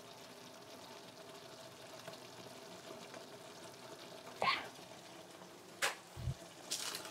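Tteokbokki sauce simmering faintly in a frying pan over a low steady hum. A short squeak comes about four and a half seconds in, then a knock, a low thump and a few clicks and scrapes near the end as a wooden spoon goes into the pan.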